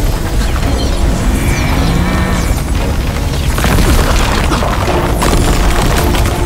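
Dramatic background music layered with deep booming sound effects and sweeping whooshes, with sharp hits about three and a half and five seconds in.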